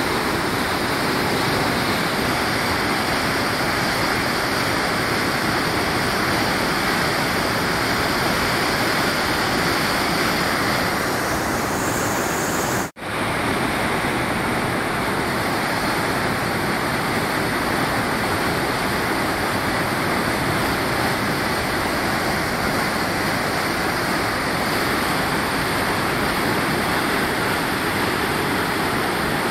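Floodwater rushing, a steady loud wash of noise, with a momentary dropout about 13 seconds in where the sound cuts out and straight back.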